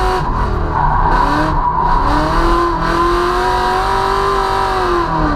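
Drift car engine at high revs while the car slides with tyre squeal. The engine note climbs about a second and a half in, holds steady, then drops near the end.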